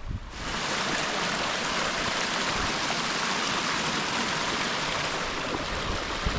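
Steady rush of flowing water from a canyon creek's small waterfall or cascade. It starts suddenly just after the beginning and then holds even.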